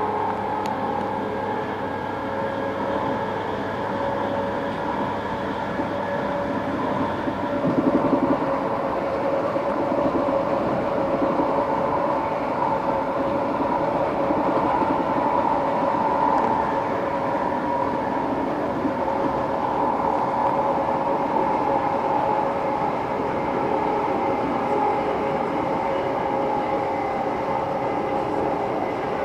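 Greater Anglia electric train heard from inside the carriage while running at speed: a steady rumble with several held humming tones from the running gear. It grows briefly louder about eight seconds in.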